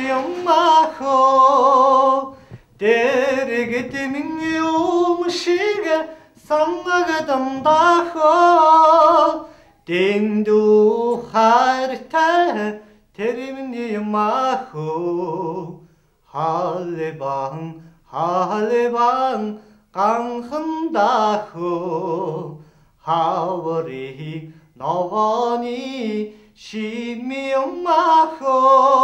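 Unaccompanied singing: a voice sings a melody in phrases of one to three seconds, with short breaks between them. From about ten seconds in, the voice sits lower in pitch.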